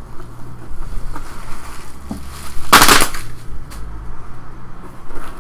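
Foil trading-card packs and packing material being handled in a cardboard hobby box: light clicks and rustles, with one loud crinkle lasting under half a second about three seconds in.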